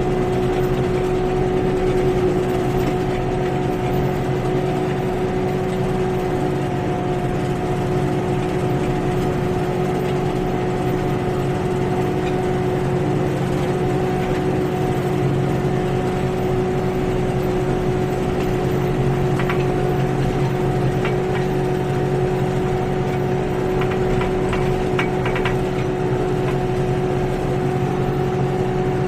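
Kioti NX6010 compact tractor's diesel engine running at a steady speed under load, driving a BH26 rotary cutter (bush hog) through clover. It holds one even hum throughout.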